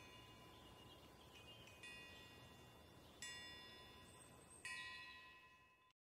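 Faint chimes, struck about every one and a half seconds, each ringing with several high tones and fading away, over a faint steady high tone.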